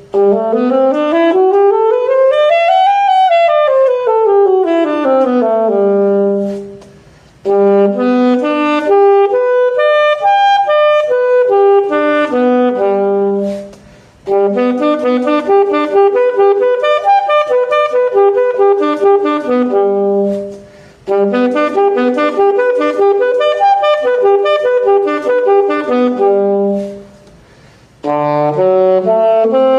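Solo saxophone playing exam scale exercises in E major and C-sharp minor: a run up about two octaves and back down, then quicker broken-scale patterns. There are four short pauses for breath between phrases.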